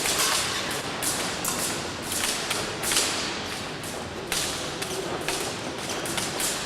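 Épée bout in progress: irregular sharp knocks and clicks from the fencers' footwork on the piste and their blades meeting.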